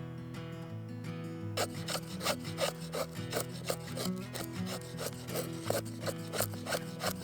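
A blade rasping on firewood in quick repeated strokes, about three a second, starting about a second and a half in, as wood is worked for a fire.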